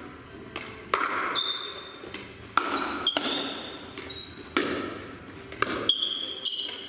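Pickleball rally: a plastic pickleball struck by paddles and bouncing on the floor, a string of sharp hollow knocks about a second apart, each echoing in the large gym hall. A few short high squeaks are mixed in.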